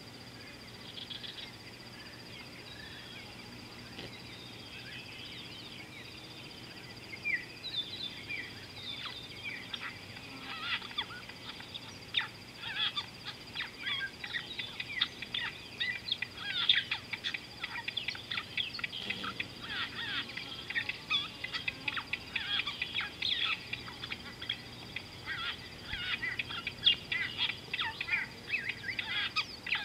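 A flock of birds calling, many short high chirps and chatters in quick succession, starting about seven seconds in and growing busier.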